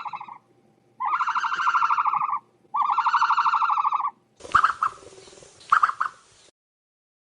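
Ostrich calls: three buzzy, rapidly pulsed calls of about a second and a half each, then a harsher, noisier call with two loud bursts about a second apart.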